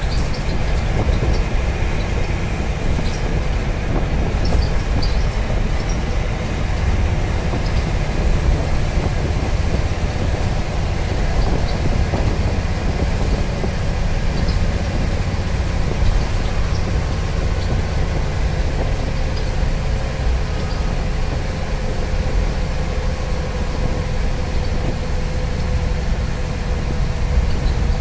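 Interior noise of a Scania CN94UB Omnicity single-deck bus under way: a steady, loud low rumble from the engine and road, with faint light rattles in the first few seconds and a faint steady whine through the second half.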